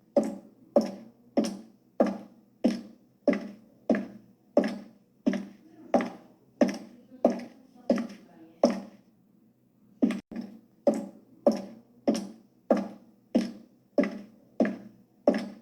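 High-heeled shoes walking, each heel strike a sharp click, at an even pace of about three steps every two seconds. The steps pause for about a second roughly nine seconds in, then carry on at the same pace.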